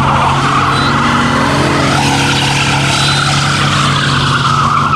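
Pickup truck doing a burnout: its spinning rear tyres squeal and skid continuously over the steady note of the engine. The squeal dies away near the end.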